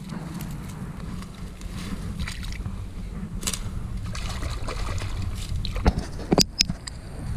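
Water sloshing and splashing over a steady low rumble of wind on the microphone, with a couple of sharp clicks a little past six seconds in.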